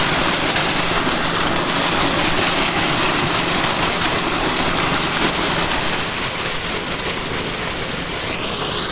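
Water gushing steadily from an irrigation pump's outlet, with the pump's low steady hum underneath.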